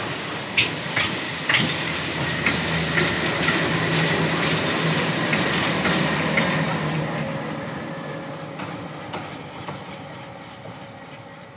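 Loaded freight wagons clattering past close by, their wheels clicking over rail joints. An ALCO diesel locomotive at the rear of the train then passes with a steady low engine drone, and the whole train fades away as it draws off.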